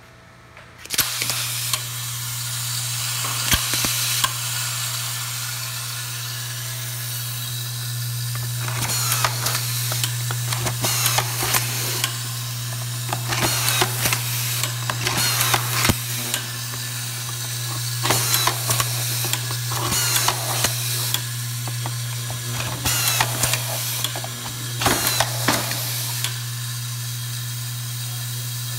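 Automatic screw feeding and driving system at work: a steady machine hum starts about a second in, and every two to three seconds comes a cycle of clicking, hiss and a short rising motor whine as a screw is fed and driven.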